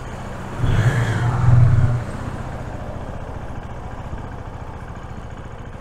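Motorcycle engine idling, with a louder swell of engine sound from about half a second in to about two seconds in, then settling back to a steady idle.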